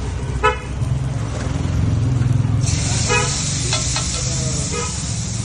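A hot iron tava sizzles, with a sudden hiss starting about halfway through as liquid hits the griddle and sends up steam around a kulcha. Steady traffic rumble runs underneath, with short car-horn toots about half a second in and about three seconds in.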